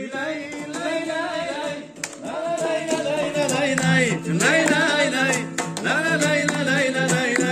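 Music: a voice singing long, wavering held notes over instrumental accompaniment with a regular beat.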